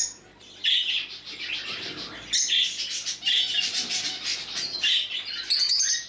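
Caged budgerigars chattering: rapid high chirps and warbles coming in overlapping bursts, with short lulls between them.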